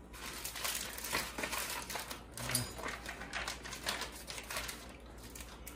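Crinkling and rustling of a wrapper being handled, with many small irregular clicks.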